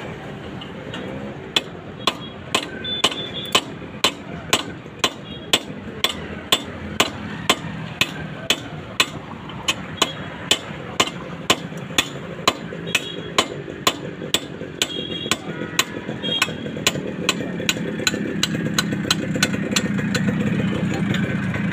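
Steady hammering, evenly spaced at about two blows a second, over an engine running in the background that grows louder near the end.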